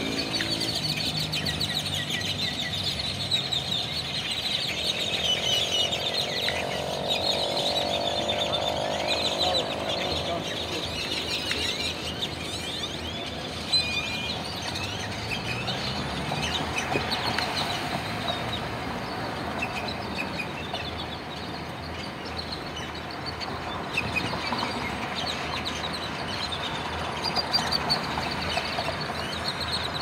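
A large roosting flock of tordos (blackbirds) calling in a tree: a dense, continuous chatter of overlapping chirps and squeaks. A vehicle engine passes beneath it between about four and ten seconds in, its pitch rising slowly.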